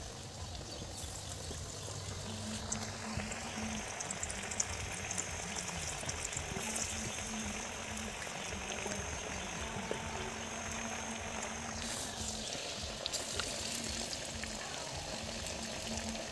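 Parippu vada (lentil fritters) deep-frying in a wok of hot oil, with a steady sizzle and fine crackling of the bubbling oil.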